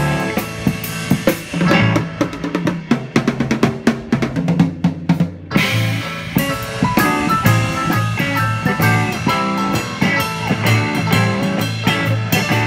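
Live band playing: drum kit with bass drum, snare and rimshots over guitar and keyboard. From about two seconds in, the drums play a dense run of strokes with little else under them, and about five and a half seconds in the full band comes back in.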